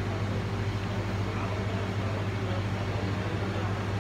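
A steady low mechanical hum that does not change, with a faint even hiss over it.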